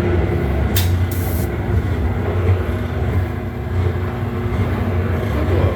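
Gas-fired rotary drum roasting machine running, a steady low mechanical hum and rumble with a few constant higher tones. A short hiss comes about a second in.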